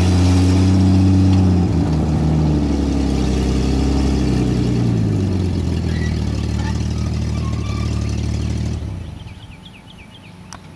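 Engine of a 1954 M43 military ambulance, a Dodge flathead inline-six, running as the truck pulls away; its pitch drops about two seconds in as it eases off and slows, then runs steady. About nine seconds in the engine sound fades out.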